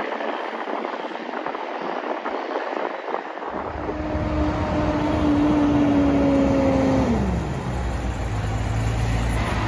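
Wind and road noise from a moving car. Then roadside traffic: a heavy truck engine rumbling, with a steady engine hum that slides down in pitch about seven seconds in.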